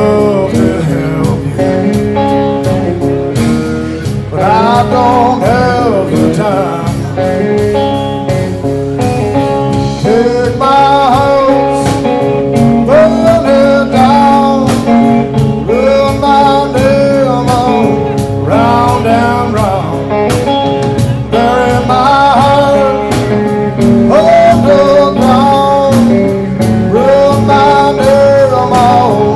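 Live blues song: a man singing over guitar, the voice coming in about four seconds in.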